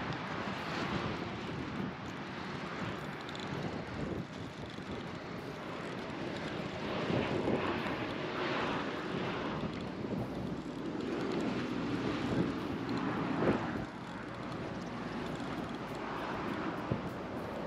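Wind gusting across the microphone, a rushing noise that swells and fades a few times.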